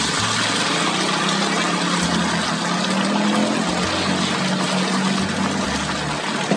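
Beaten egg sizzling steadily on a hot flat-top griddle as more is ladled onto it, over a steady low hum.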